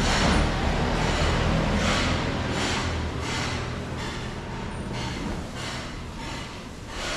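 Footsteps of a person walking on rough ground, an even scuffing tread of about one and a half steps a second, over a low rumble that fades after the first two or three seconds.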